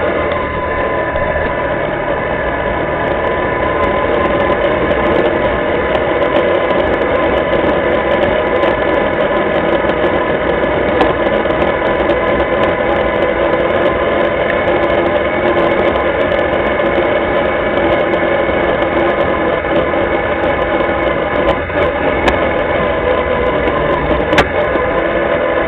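Linhai ATV engine running steadily while the quad rides, heard close up from a camera mounted on the machine, with a few faint clicks near the end.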